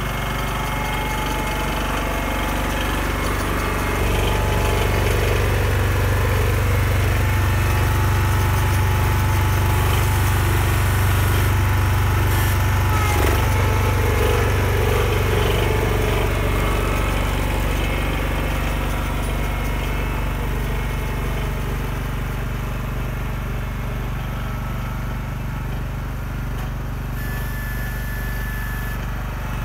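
John Deere 140 garden tractor's single-cylinder engine running steadily while the tractor plows snow with its front blade. It gets louder about four seconds in as the tractor passes close, then slowly fades as it moves away.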